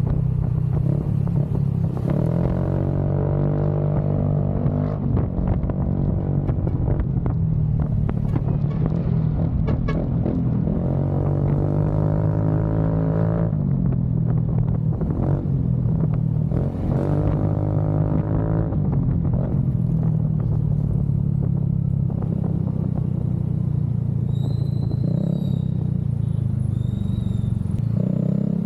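Motorcycle engine running through its exhaust. The pitch rises and falls several times as the throttle is opened and closed.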